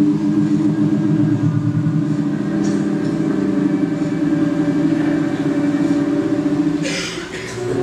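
A long, rough, low droning tone made by the kneeling performer, fluttering rapidly, broken by a sharp breath near the end before it starts again.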